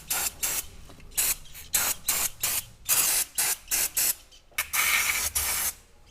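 Aerosol carburettor cleaner sprayed in a quick series of short hissing bursts, with one longer spray about two thirds of the way through, to wash carbon deposits off a diesel throttle body.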